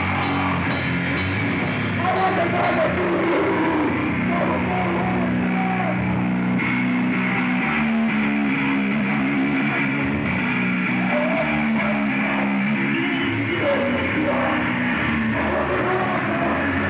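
Heavy metal band playing live: distorted electric guitar and drum kit, loud and unbroken.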